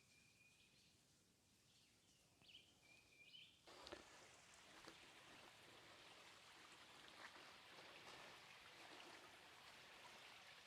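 A few faint bird chirps over near silence, then, a little under four seconds in, a steady rush of falling water from a small waterfall comes in suddenly and carries on.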